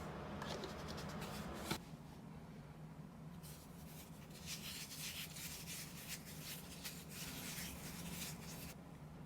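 Repeated scratchy scraping and rubbing strokes of hand food preparation: a short flurry, then a steady run of strokes lasting about five seconds, over a faint low hum.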